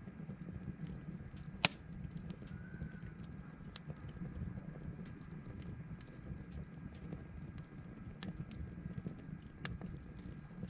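Wood fire burning in a fire stand, crackling with scattered small clicks and a low steady rumble, and a loud sharp pop about a second and a half in and another near the end.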